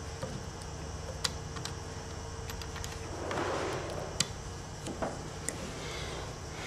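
Scattered sharp light clicks and taps, with a brief scraping rustle about three seconds in, over a faint steady hum that stops at about the same time.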